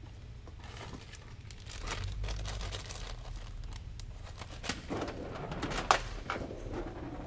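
Crinkling and rustling of something being handled on a desk, with scattered sharp clicks; the loudest click comes about six seconds in. A steady low hum lies underneath.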